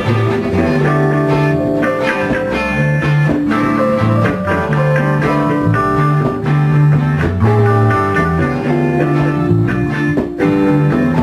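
Band music: guitar playing over a bass line that steps between notes, loud and continuous.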